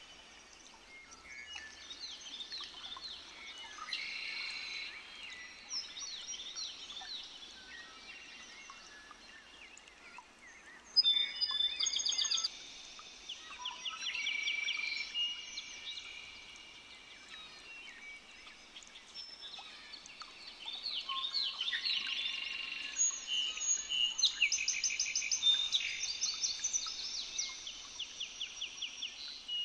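Birds chirping and calling, with many short high notes and rapid trills; the loudest burst comes about 11 seconds in, and a busy stretch of trills follows from about 20 to 27 seconds.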